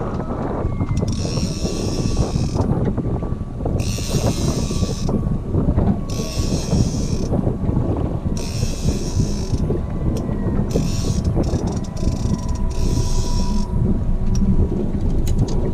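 Fishing reel ratcheting in bursts of about a second, about half a dozen times, while a hooked fish is fought on a trolling rod. Wind and boat rumble run underneath.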